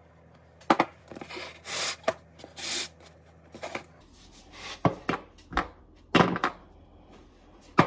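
First a few soft rustles as chopped onion is sprinkled onto a pizza, then sharp knocks and short scrapes as a metal baking sheet is handled and set down on a counter.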